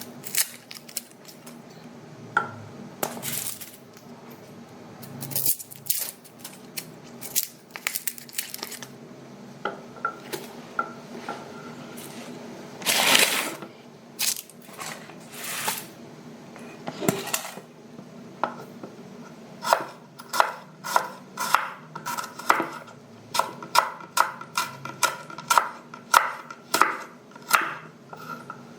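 Onion being peeled and sliced with a knife: irregular small clicks and scrapes of peeling and cutting, then from about two-thirds of the way through a steady run of knife strokes, about two a second, chopping down through the onion.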